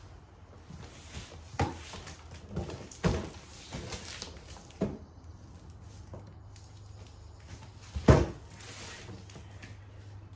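A large cardboard box holding a reel lawn mower being handled and shifted: several separate knocks and scuffs, then a heavy thump about eight seconds in as it is laid down flat on the floor.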